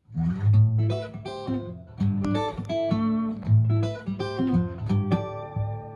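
Solo acoustic guitar playing a plucked instrumental intro: picked notes over a strong, rhythmic bass line, with no singing.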